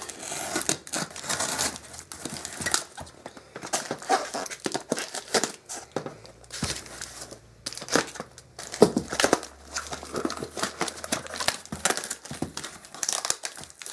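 Cardboard shipping box being cut open with scissors: packing tape tearing and cardboard and packing crinkling in irregular rustles and clicks.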